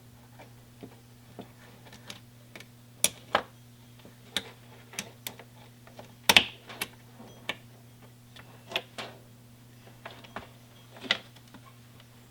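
Irregular clicks and light knocks of small metal parts and tools being handled while a choke cable is fitted into a motorcycle's throttle-and-choke cable distribution box, the loudest knock about six seconds in. A steady low hum runs underneath.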